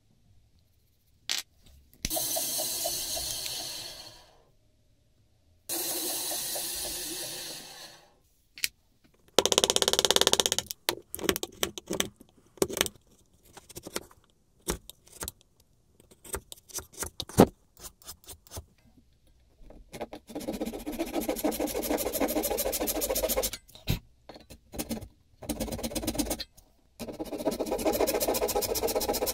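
Hand woodworking on boxwood: long scraping strokes, a run of short clicks and taps, then a fine-toothed hand saw cutting a kerf into a thin boxwood strip in quick, repeated strokes.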